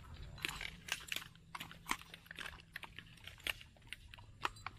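Light, irregular clicks and rustling of tactical gear and a carbine being handled, several small knocks a second over a low steady hum.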